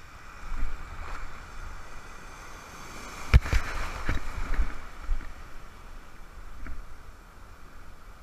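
Surf waves washing and splashing against a wading angler, close to the microphone, over a low rumble. A sharp, loud splash comes about three seconds in as a wave breaks over the camera, followed by a few more splashes that die down.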